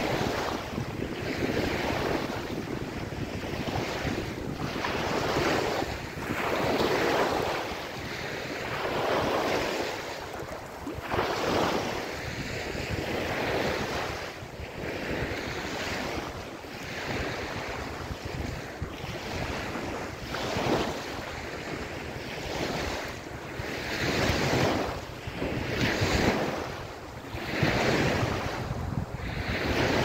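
Small ocean waves breaking and washing up a sandy beach, the surf swelling and fading in repeated surges every two to three seconds.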